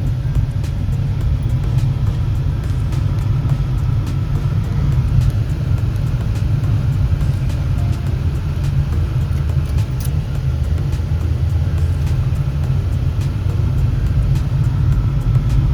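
A steady low rumble throughout.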